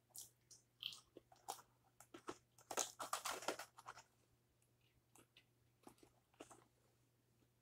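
Crunching bites and chewing of a crisp fried food, in a dense cluster about three seconds in, followed by a few light crackles of a cardboard food box being handled.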